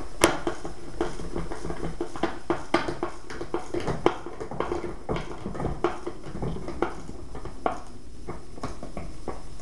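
Irregular clicks and light knocks of a skateboard's hardware and a tool being handled during assembly, with a steady low background hum.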